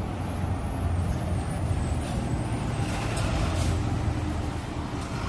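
Bus engine running steadily with a low hum, with a few short high hisses about two to four seconds in.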